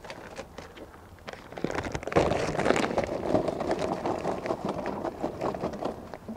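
Charcoal briquettes poured from a bag, clattering onto the coals in the metal side firebox of an offset smoker; the clatter starts about a second and a half in and runs on as a dense stream of small knocks.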